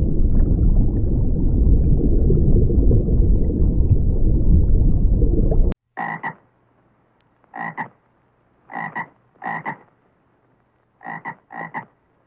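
A loud low noise for about six seconds that stops suddenly. Then a frog croaking in about seven short, separate calls, some coming in quick pairs and threes.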